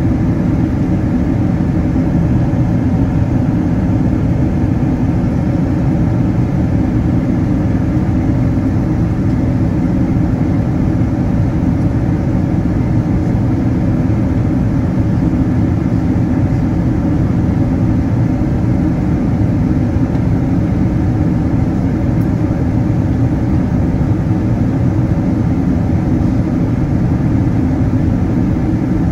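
Boeing 777-200 in cruise-flight: its turbofan engine and the rushing airflow heard inside the cabin as a deep, steady drone with a faint hum on top and no change in pitch or level.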